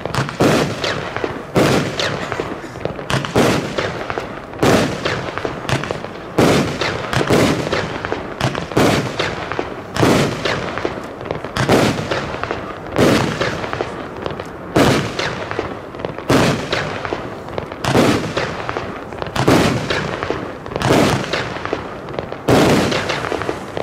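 Consumer firework battery (Weco Heavy Metal Reloaded, 30 mm calibre) firing shot after shot, with a sharp bang roughly every second and crackle between the bangs as the glitter bouquets burst.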